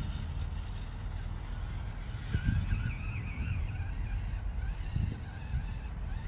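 Small electric motor and gears of a 1:18 scale RC crawler whining, the pitch wavering up and down with the throttle, over a low rumble with two thumps, about two and a half and five seconds in.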